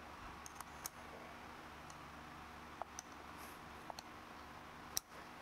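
Faint, scattered small metallic clicks of a hex driver working the screws of an aluminium wheel hub, about six over the few seconds, the loudest near the end.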